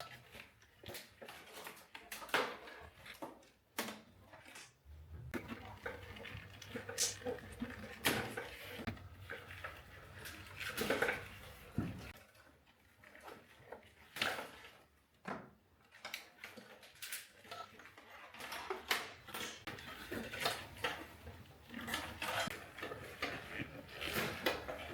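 Irregular clicks, rattles and rustles of a car wiring harness being handled: plastic split loom and bundled wires being worked into place and secured to the other wires.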